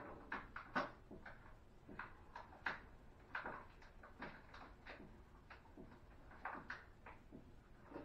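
Light clicks and knocks of things being handled on a table, a dozen or so at irregular intervals, faint and distant.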